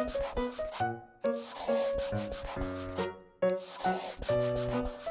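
Scratchy pen-on-paper drawing sound in stretches of a second or two with short breaks, over a light background tune.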